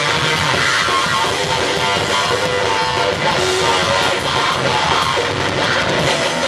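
Live rock band playing loud and steady, electric guitar over a drum kit.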